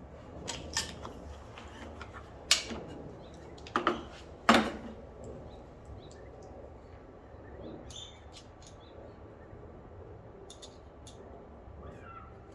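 Sharp clicks and knocks of small carburettor parts and a hand tool being handled, loudest about two and a half and four and a half seconds in, followed by fainter scattered ticks.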